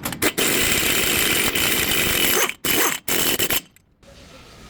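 A power tool run in bursts during a front wheel bearing replacement: a short blip, a long run of about two seconds, then two shorter runs, each stopping abruptly.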